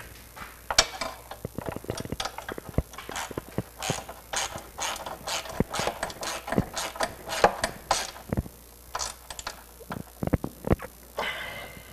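Ratcheting wrench clicking in quick, irregular runs as the EVAP canister's mounting bolts are tightened.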